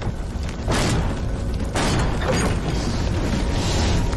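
Two heavy kicks slam against a trailer door about a second apart, forcing it open, over the steady low noise of a fire burning.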